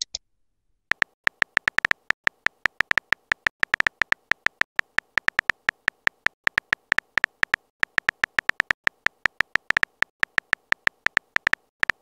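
Typing sound effect of a texting-story chat app: a fast run of short electronic ticks, about five or six a second, one for each letter typed into the message box, starting about a second in.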